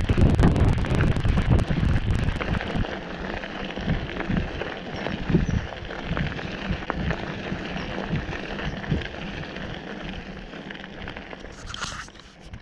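Bicycle tyres rolling over a gravel path: a steady crunching crackle made of many small ticks. Wind buffets the handlebar-mounted action-camera microphone for the first couple of seconds, and the sound fades out near the end.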